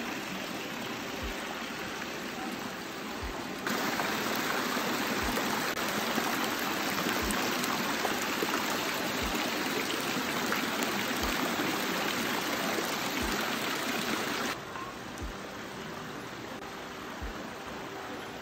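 Steady rushing of running water, which gets abruptly louder about four seconds in and drops back about fourteen seconds in.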